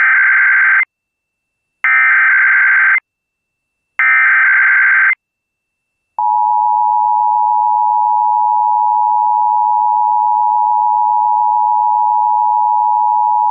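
Emergency Alert System SAME header: three bursts of warbling data tones, each about a second long with a second's gap between them. About six seconds in, the steady two-tone EAS attention signal starts and holds. This opens a Required Monthly Test of the alert system.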